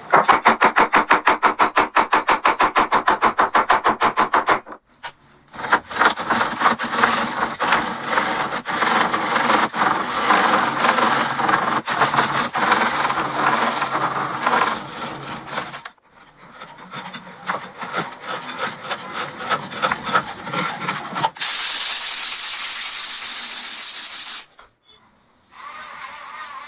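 A tool working wood with rapid, repeated rasping strokes, fast and even at first, then more irregular after a brief break. It goes quieter, then about three-quarters of the way through there is a steady loud hiss for about three seconds that stops suddenly.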